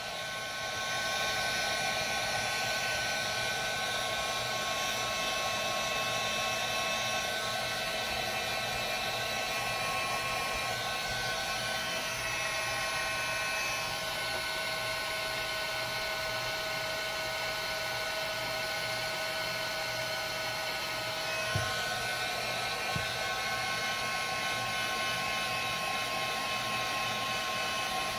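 Heat gun running steadily, its fan blowing hot air to melt and smooth the inside walls of a paraffin-wax lantern. Two light knocks about three quarters of the way through.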